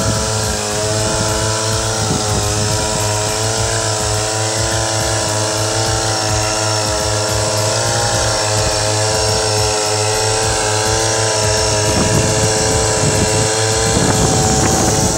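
A small engine running at a steady speed, its hum wavering slightly in pitch, with a rougher rattle joining in over the last few seconds.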